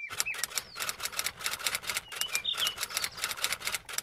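A rapid, even run of light clicks, about seven or eight a second, like a typewriter, with a few short, high bird chirps over it.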